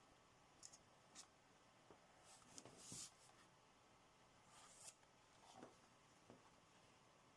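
Near silence broken by a few faint light clicks and short rustles, the strongest about three seconds in.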